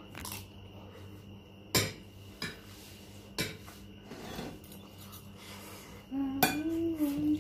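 Metal spoons and forks clinking and scraping on ceramic plates during a meal, a few sharp clinks spread over the first few seconds. A short pitched voice-like sound comes in near the end.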